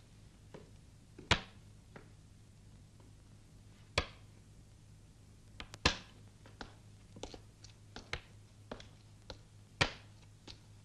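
Sharp, irregular knocks and clicks, four of them loud and spaced about two seconds apart with fainter ticks between, over a faint steady low hum.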